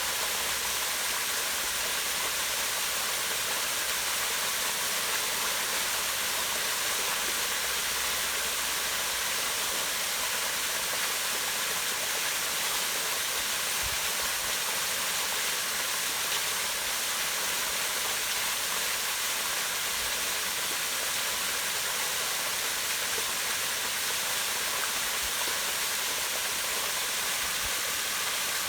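Small waterfall pouring down rocks into a pond: a steady rush of falling water, with a few faint low thuds.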